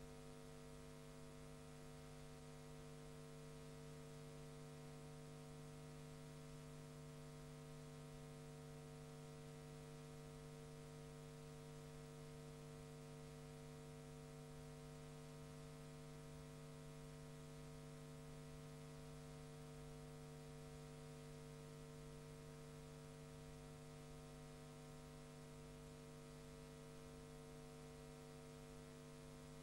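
Near silence: a faint, steady electrical hum with hiss underneath, unchanging throughout.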